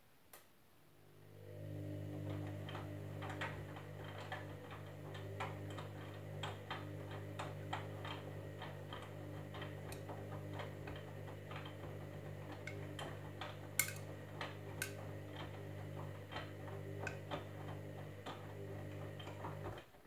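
Candy Grand'O Vita washing machine turning its drum in a wash tumble: after a single click the motor hum rises within about a second and holds steady, with frequent light clicks and taps from the wet load tumbling in the drum. The motor cuts off suddenly near the end.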